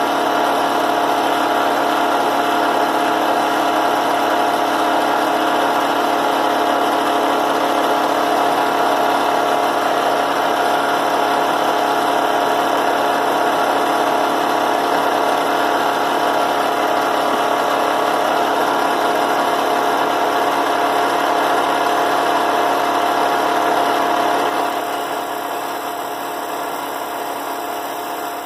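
A cheap benchtop drill press running steadily, spinning the disc used to grind a carbide end mill: a constant motor hum with one clear steady tone, a little quieter near the end.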